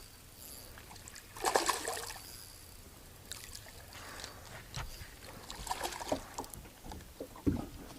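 Handling noise on a small fishing boat: a brief splash of water about one and a half seconds in, then scattered light knocks and clicks and a low thump near the end.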